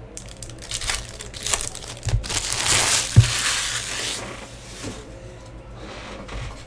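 Empty foil trading-card pack wrappers crinkling as they are gathered up and crushed, for about a second and a half in the middle, with a couple of dull knocks on the table, the second one the loudest.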